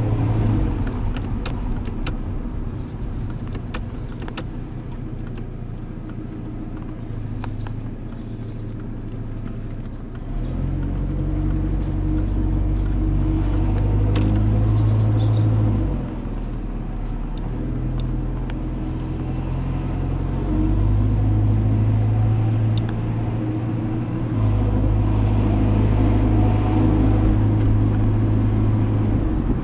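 1993 SAAB 900 Turbo S's 2.0-litre 16-valve turbocharged four-cylinder engine, heard inside the cabin while driving. The engine note is fairly quiet for the first third, then grows louder about a third of the way in. It eases briefly around halfway and again about two-thirds through, then rises again.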